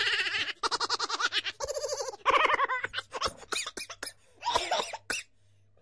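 A woman laughing, first in quick, evenly pulsed bursts for about two seconds, then in shorter, breathier snatches that trail off.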